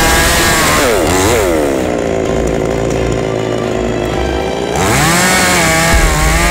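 Two-stroke gasoline chainsaw running at high revs and cutting through a small tree trunk. Its engine pitch dips and recovers about a second in, sits lower through the middle, then climbs again about five seconds in.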